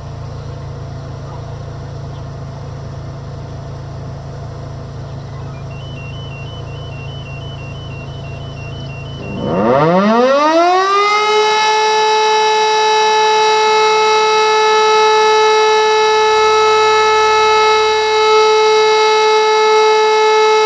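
An E57 electromechanical mast siren sounding for a siren test. It starts about halfway through, its rotor winding up in a steeply rising howl over a couple of seconds, then holds one loud, steady tone. Before it starts there is only a steady low rumble.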